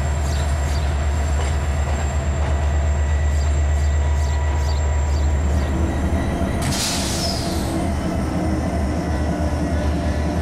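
CFR Class 63 diesel-electric locomotive running past with a steady low engine drone, hauling passenger coaches, with faint regular clicks of wheels over rail joints. About six seconds in the sound shifts, and a brief burst of hiss comes through.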